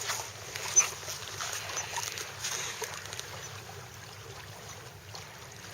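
Water trickling and splashing around a kayak, with scattered light knocks and clicks and one sharper knock about a second in.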